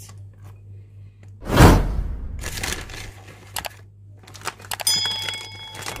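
Rustling and crinkling as grated cheese is tipped into a glass bowl of batter, loudest in a short burst about a second and a half in, with a few small clicks after. Near the end a short electronic chime of steady tones sounds, over a steady low hum.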